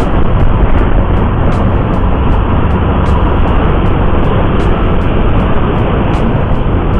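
Steady rush of wind over a handlebar-mounted camera's microphone, with a scooter's engine and tyre noise underneath, riding at a constant speed of about 50 km/h.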